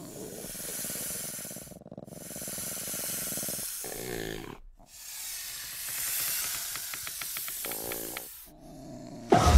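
Heavy, hissing breaths, three long ones with short pauses between; the second and third end in a low, growling rasp. Just before the end a sudden, much louder low rumble breaks in.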